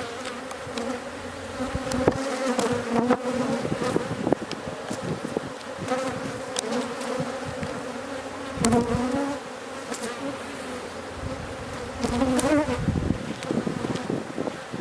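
Honey bees buzzing around an opened hive: a steady hum that swells and fades, with occasional light clicks.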